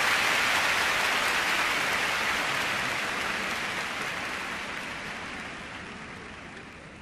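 Arena crowd applauding, the applause fading steadily away.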